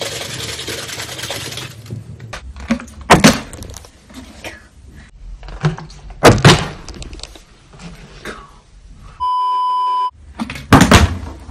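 A water bottle weighted with salt water is shaken briskly. It is then flipped and hits the tile floor with a loud thud three times. Just before the last landing comes a steady, pure electronic bleep lasting under a second.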